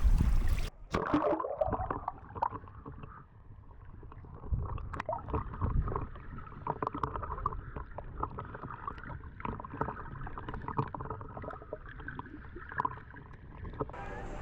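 Muffled water sloshing and gurgling in shallow water, with many small clicks and splashes.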